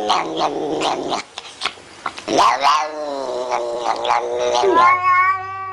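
A cat yowling in long, drawn-out calls whose pitch bends up and down, with a longer held yowl starting near the end.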